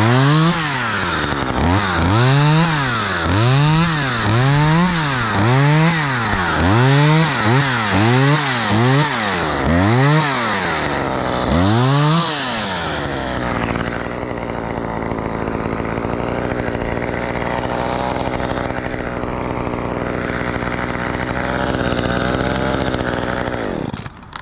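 Husqvarna chainsaw revving up and down in short bursts about once a second for the first half. It then runs steadily at idle and cuts off near the end.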